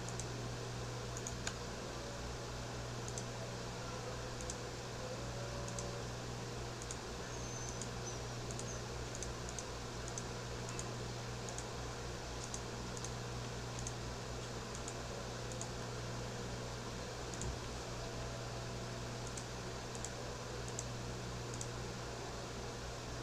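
Faint computer mouse and keyboard clicks, short and scattered about once a second, over a steady low electrical hum and room hiss.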